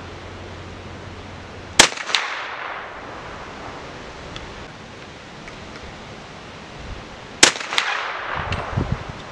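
A .375 H&H Magnum CZ 550 American Safari rifle firing reduced loads of Green Dot powder behind cast lead bullets, shot twice about five and a half seconds apart. Each sharp report is followed a fraction of a second later by a second, fainter crack.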